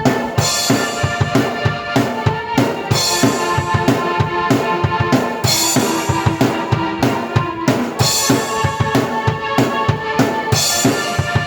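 Drum kit and keyboard played together in an energetic instrumental piece: a busy kick-and-snare beat under held keyboard chords and melody, with cymbal crashes every few seconds.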